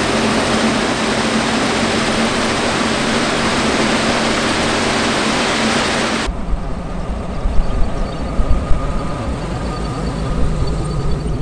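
Plasser & Theurer RMW 1500 ballast cleaning machine working at close range: a dense, steady mechanical din with a steady hum underneath. About six seconds in it cuts off abruptly, giving way to a deeper rumble with irregular bumps.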